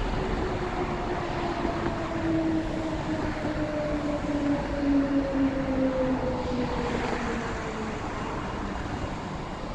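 Queensland Rail electric multiple-unit train running past on the tracks below, its motors giving a whine that falls slowly in pitch over about eight seconds above a steady rumble.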